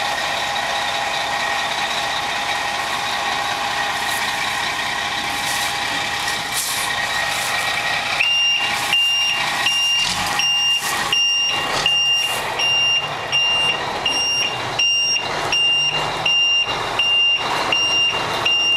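Dump truck's engine running steadily with its bed raised. About eight seconds in, its back-up alarm starts beeping steadily, about two beeps a second, as the truck reverses.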